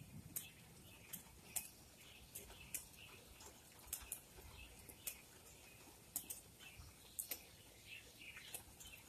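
Scattered raindrops tapping close to the microphone: irregular sharp ticks, roughly one a second, over a quiet background.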